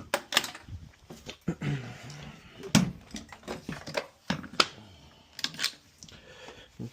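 Irregular sharp clicks and taps of hand tools and lock hardware being handled, about a dozen in all, with a brief low murmur in between.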